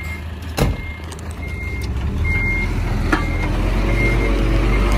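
Reversing alarm on heavy earthmoving machinery beeping steadily, one high tone a little more than once a second, over a diesel engine's rumble that grows louder about halfway through. A sharp knock just under a second in.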